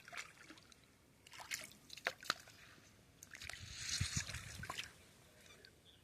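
Shallow water sloshing and splashing close to the microphone, with a few sharp drips and splashes in the first half and a longer slosh about four seconds in.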